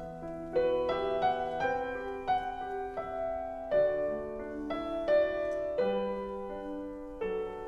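Background music: a slow piano piece, single notes and chords struck one after another, each left to ring.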